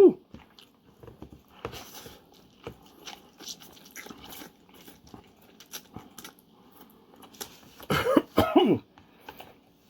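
Someone eating spicy instant noodles: faint chewing and small wet mouth clicks, then about eight seconds in a short, loud burst of coughing and vocal sounds from the ghost pepper heat.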